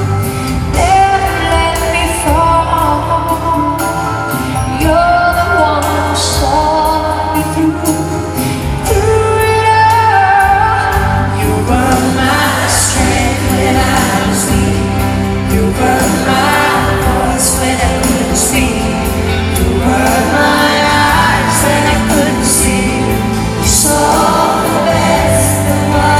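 A female vocalist sings a slow pop ballad live, backed by a full band with keyboards and drums.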